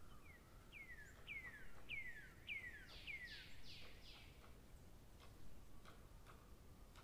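A bird calling: a series of whistled notes, each sliding down in pitch, about two a second for some four seconds, the last few harsher. Faint scattered clicks.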